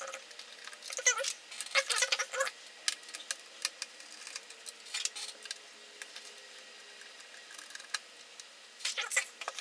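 Small metal clicks, ticks and scrapes of a tiny screwdriver working small screws loose, irregular and scattered, busiest in the first couple of seconds and again near the end.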